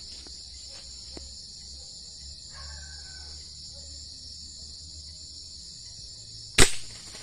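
Night chorus of crickets and other insects, a steady high-pitched trilling drone. A single sharp knock cuts in loudly near the end.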